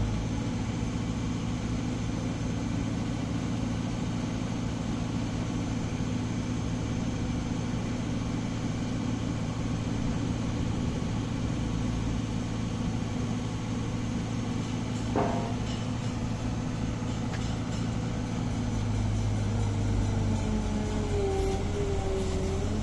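Caterpillar 306 mini excavator's diesel engine running steadily, with a thinner whining tone above it that wavers in pitch. There is a single sharp clank about fifteen seconds in, and the engine gets a little louder near the end.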